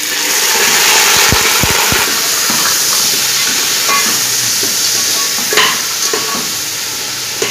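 Raw chicken pieces dropped into hot oil and fried onions in an aluminium cooking pot, sizzling loudly the moment they go in, with a few soft thumps in the first two seconds as the pieces land. A fork scrapes and knocks against the pot now and then as the chicken is stirred.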